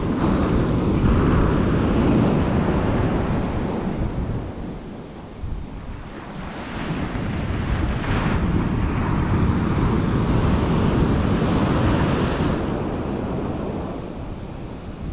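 Ocean surf breaking and washing up a sand beach in two long surges, easing off in between, with wind buffeting the microphone.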